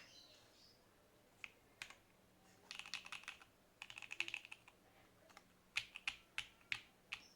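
Typing on a gasket-mount TKL mechanical keyboard with an FR4 plate and lubed JWICK Black switches: a couple of single keystrokes, then two quick bursts of rapid typing, then a run of separate keystrokes about a third of a second apart near the end.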